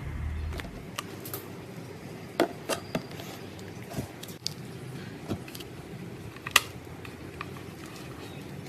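Slime being pressed and squeezed, giving scattered short pops and clicks as trapped air bubbles burst, with a sharper pop about two-thirds of the way through.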